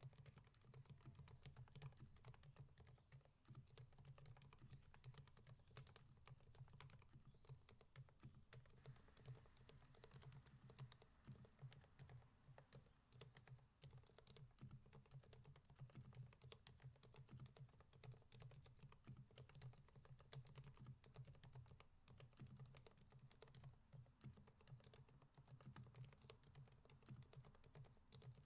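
Steady, continuous typing on a Keychron V5 mechanical keyboard with Kailh Fried Egg silent switches and XMI black keycaps: quiet, dampened key presses, several a second.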